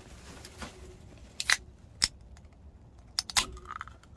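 A handful of sharp clicks and snaps from small objects handled close by, the two loudest about a second and a half and two seconds in.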